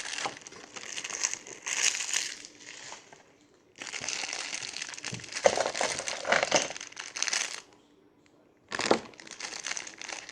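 Crinkling and rustling from fidget toys being handled close to the microphone, in three stretches with two short pauses.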